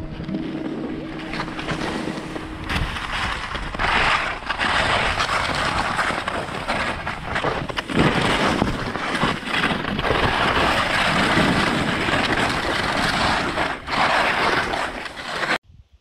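Skis running downhill, their edges scraping and carving through chopped-up piste snow with a loud, crisp hiss that swells again and again, mixed with wind on the microphone. It gets louder about four seconds in and cuts off suddenly just before the end.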